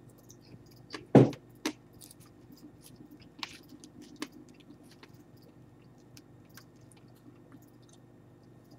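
Crunching and chewing of dried silkworm pupae, with a few sharp crunches about a second in and fainter crackles after.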